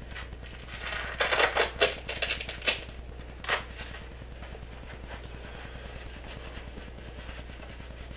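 Rustling and scuffing of a waterproof winter work glove being pulled onto a hand: a flurry of short rubbing sounds between about one and three seconds in and one more just after, then only a low steady hum.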